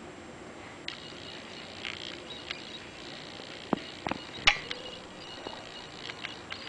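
Bull terrier eating dry kibble from a metal bowl: scattered crunches and clicks of teeth and muzzle against the bowl, with one sharp ringing clink of the bowl about four and a half seconds in.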